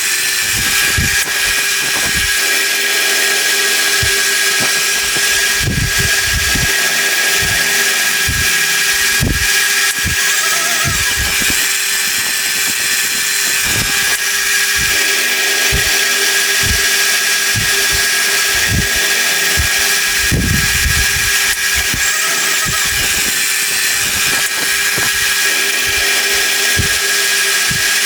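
Milling machine cutting a deep slot in hard steel over several passes: a steady motor and cutter whine with irregular low knocks.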